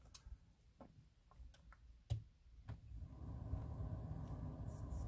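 A few faint, scattered clicks in a quiet car cabin, then a low steady hum comes in about three seconds in.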